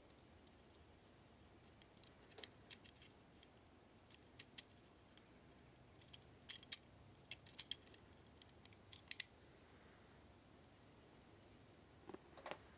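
Faint, scattered clicks and taps of small steel parts as a Mauser C96 bolt is taken apart with a small screwdriver, with a quick run of clicks in the middle and another cluster near the end.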